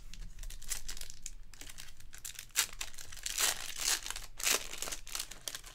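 Foil trading-card pack wrapper crinkling and tearing as it is ripped open by hand, with a few sharper crackles in the middle.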